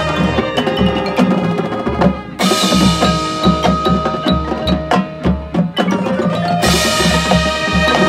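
Marching band playing, with drums and front-ensemble mallet percussion such as marimbas carrying a steady beat. A loud, fuller entry comes about two and a half seconds in and another near the end.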